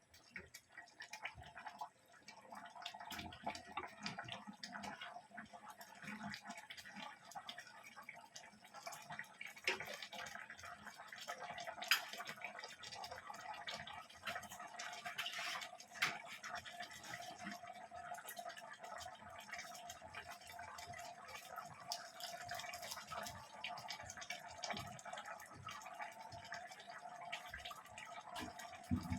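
Faint liquid sounds, dripping and bubbling, with scattered small clicks over a steady low hum.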